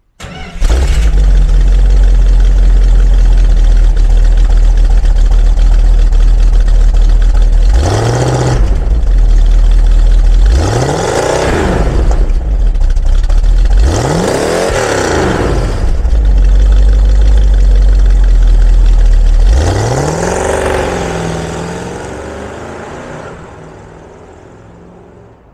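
A 1971 Dodge Challenger R/T's 340 cubic-inch V8 exhaust, idling steadily and revved in several blips, each rising and falling. Near the end the car pulls away and the sound fades out.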